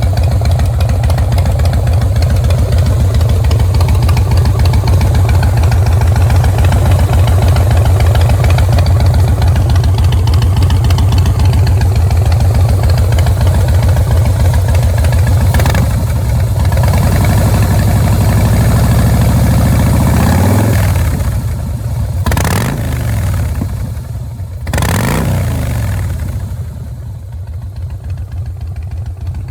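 2007 Harley-Davidson Fat Boy's Twin Cam 96 V-twin, running through an aftermarket Freedom Performance exhaust, idling with a steady low pulse. A little past halfway it is revved up slowly and let drop, then blipped sharply twice, and it settles back to a quieter idle.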